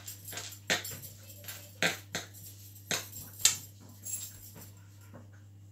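Hands and a round pastry cutter working scone dough on a floured kitchen worktop: sharp, irregular taps, about six in the first four seconds, the loudest about three and a half seconds in.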